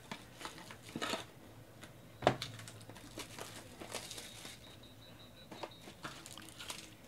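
Plastic card-pack wrappers crinkling and tearing as trading-card packs are opened and handled, with scattered small clicks. One sharp knock a little over two seconds in stands out as the loudest sound.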